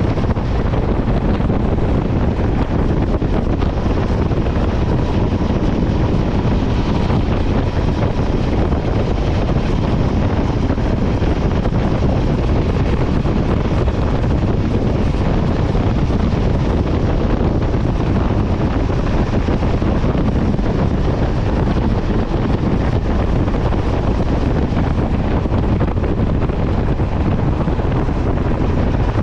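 Steady wind rush buffeting the microphone on a motorcycle riding at road speed, mixed with the bike's running and road noise.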